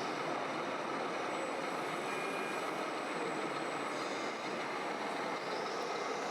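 Steady mechanical running noise of RC model trucks and construction machines, even throughout with no distinct knocks or starts.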